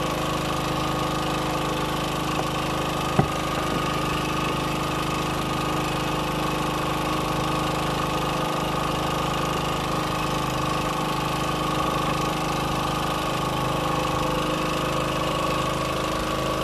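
A boat's engine running steadily at an even speed. There is one short sharp knock about three seconds in.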